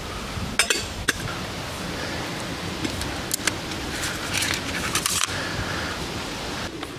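Stainless-steel camping kit being handled, a vacuum flask among it: a few sharp clicks and clinks in the first half, then a longer rasping, scraping stretch a little past the middle.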